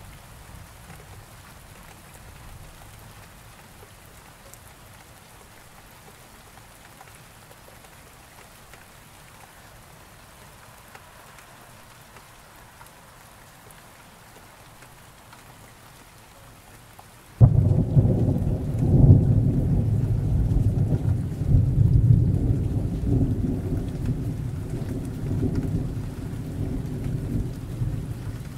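Steady soft rain falling, then about two-thirds of the way in a sudden crack of thunder opens into a long, loud rumble that swells and fades in waves.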